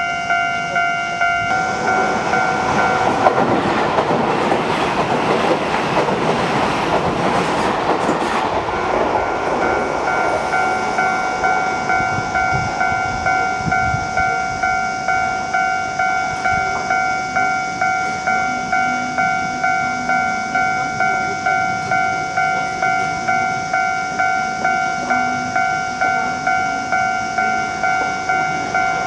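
Japanese railway level-crossing alarm sounding a steady ringing tone that pulses evenly, while a Keio 1000 series electric train runs over the crossing, its wheels and running noise loudest from about two to ten seconds in. The alarm keeps ringing after the train has gone by.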